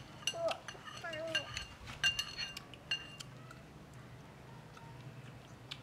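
Metal spoons clinking against a ceramic bowl and metal tray: a quick run of sharp, ringing clinks through the first three seconds or so, then quieter. A couple of short voice sounds come in between the clinks.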